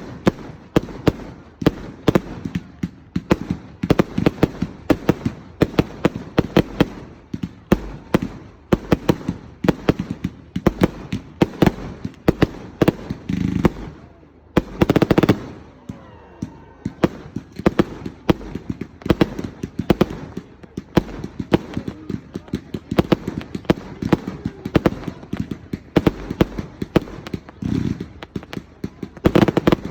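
Fireworks going off: rapid crackling pops, several a second throughout, with a few louder bursts about halfway and near the end.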